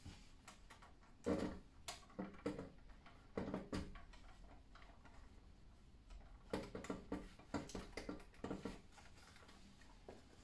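Soft handling sounds of a cleaning cloth rustling and a die-cast model car being moved on a tabletop, with light clicks and knocks. They come in three bursts: just over a second in, around three and a half seconds, and again from about six and a half to nine seconds.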